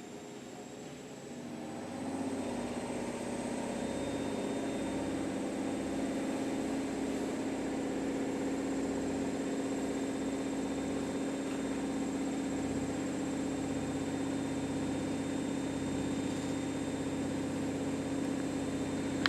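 Washing machine motor speeding up about two seconds in, then running steadily with a hum and a faint high whine.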